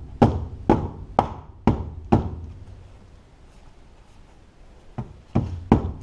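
Knocks on the air filter housing of a New Holland L230 skidsteer, tapping a tight new filter to seat it: five sharp knocks about half a second apart, a pause of about three seconds, then two more near the end.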